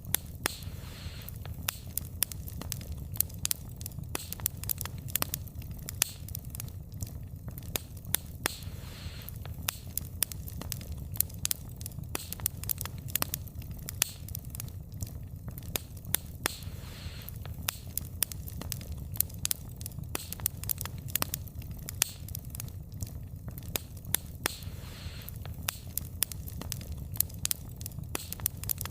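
Firewood burning, with frequent sharp crackles and pops over a steady low rumble. A soft hiss swells and fades about every eight seconds.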